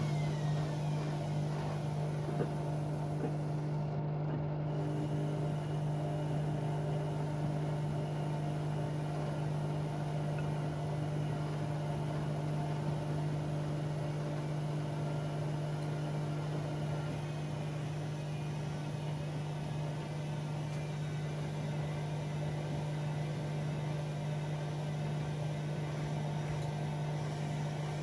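Bauknecht WA Aquaton 1400 washing machine running a 60 °C cottons wash: a steady low hum, with the drum motor's whine falling away right at the start and starting to rise again at the very end.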